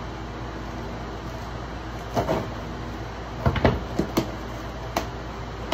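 Knocks and scrapes from a cardboard box being handled as forge burner parts are pulled out of it: one about two seconds in, a quick cluster a second later, another near the end. Under them runs the steady hum of electric fans.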